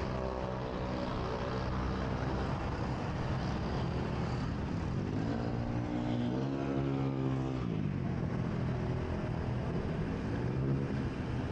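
A motor vehicle's engine running close by over steady wind and road noise; its pitch climbs about five seconds in and drops away near eight seconds.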